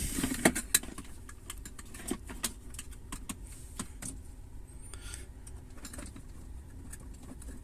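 A run of irregular light clicks and taps, like fingers handling small plastic parts and cables.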